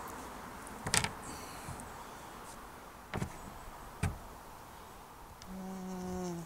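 A few short clicks and knocks of handling, then about five and a half seconds in a cordless drill's motor runs steadily for about a second, driving a screw, its pitch falling slightly.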